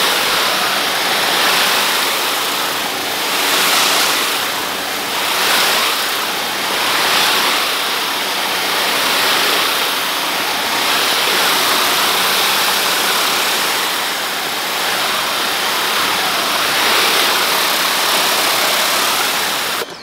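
Pressure washer spraying through a Ryobi rotary surface cleaner pushed over wet concrete: a loud, steady hiss of water jets that swells and eases a little as the cleaner is swept back and forth, cutting off suddenly near the end.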